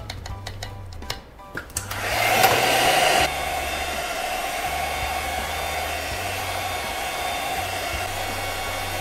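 Handheld hot-air gun blowing steadily, starting about two seconds in, loudest for the first second, then settling. It is heating an iPhone's screen to soften the waterproof adhesive before the panel is lifted.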